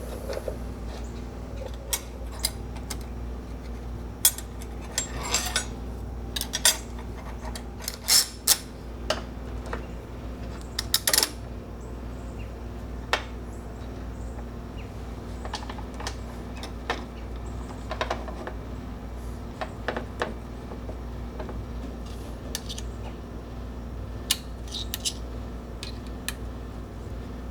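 Metal pieces and tools handled on a workbench: scattered clinks and clanks, some ringing briefly, over a steady low hum.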